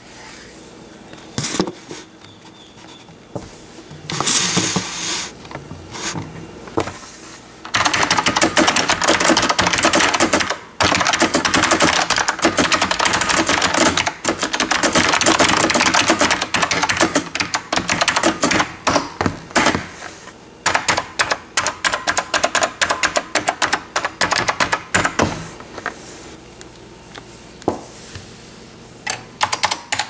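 Complicated blue Alps switches of a 1988 Focus FK-2001 mechanical keyboard clicking under typing, heard close up. After a few scattered keystrokes and a brief rustle, a fast, dense run of typing starts about eight seconds in and thins to slower separate keystrokes in the last third.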